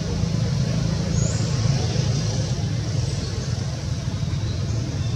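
Steady low rumble of outdoor background noise, with one faint short high chirp about a second in.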